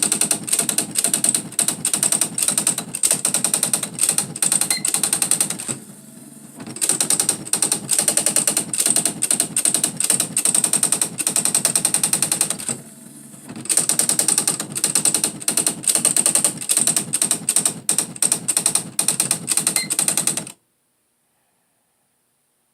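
Smith Corona SE 200 electronic typewriter printing its demo text automatically: a fast, machine-gun-like rattle of character strikes in three long lines. Between the lines there are two brief, quieter pauses, and the printing stops abruptly near the end.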